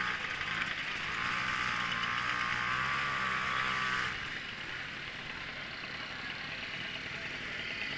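Small moped engines running in a crowd of bikes: a nearby one runs loud and steady for about four seconds, then drops back, leaving the others idling underneath.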